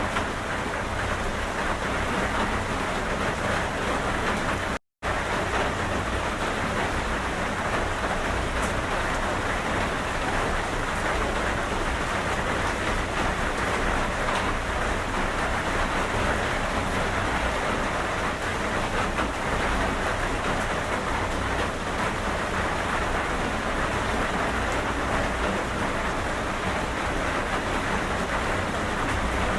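Steady rain falling, an even hiss with no pauses except a split-second dropout to silence about five seconds in.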